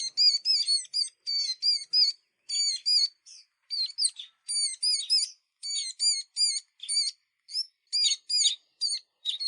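A flock of small songbirds chirping, short high calls following each other several times a second with brief pauses between runs.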